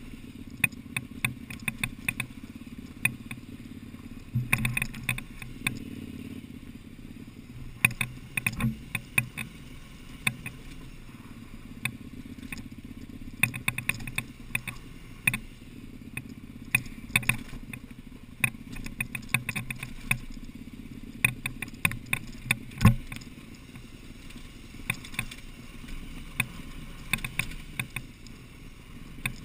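KTM Adventure's V-twin engine running steadily as the motorcycle rolls over a loose rocky track, with frequent sharp clicks and clatter from stones and the bike jolting over them. One hard knock late on is the loudest sound.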